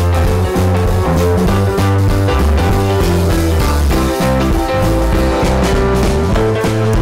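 Guitar-driven rock music with a drum beat.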